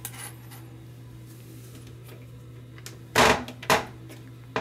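Toilet seat being handled while its rubber gaskets are pushed into place: two sharp knocks about half a second apart a little after three seconds in, over a steady low hum.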